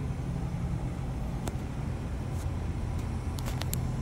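A 5 HP, 1800 RPM three-phase 460 V electric blower motor running without a belt, spinning its bare pulley on a rotation check: a steady low hum with a few faint ticks.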